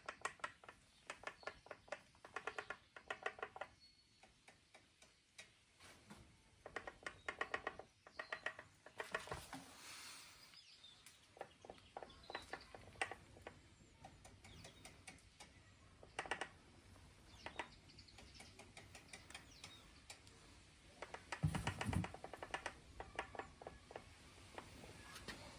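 Specialized Levo Gen 4 e-bike's Pro 3.1 motor knocking and clicking as the cranks are turned backwards, in repeated runs of rapid, even clicks a second or two long, with a dull thud a little after twenty seconds. The uploader and Specialized treat this rattle as normal for the motor, not a fault.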